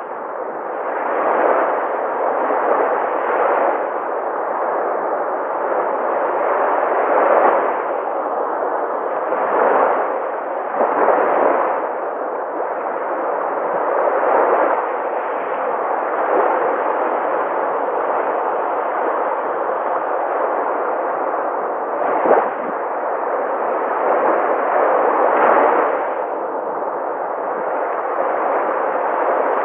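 Sea waves breaking on a shore: a continuous rush of surf that swells and eases every few seconds, with one sharper crash about 22 seconds in.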